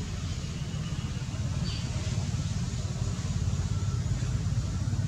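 Steady low rumbling background noise, like distant traffic or wind on the microphone, with one brief high squeak a little under two seconds in.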